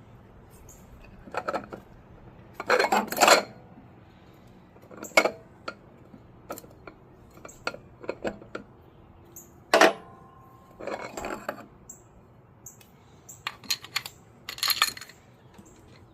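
Metal automatic-transmission parts clinking and clanking as they are handled and set down: scattered knocks and short runs of clatter. The loudest knock comes about ten seconds in, with a brief metallic ring after it.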